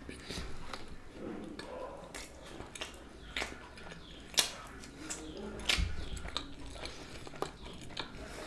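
A person chewing a mouthful of cheese pizza close to the microphone, with scattered wet mouth clicks and smacks. The sharpest click comes about four and a half seconds in.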